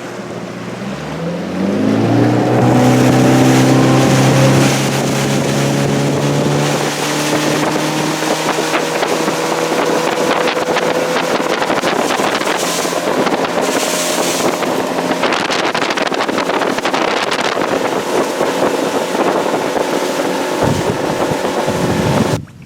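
A fishing boat's outboard motor revving up over about two seconds, then running steadily at speed, with wind and water rushing past. It cuts off suddenly near the end.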